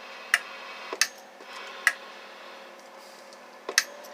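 A CB amplifier's new transmit relay clicking in and out at irregular intervals as the radio is keyed, with the single sideband delay working.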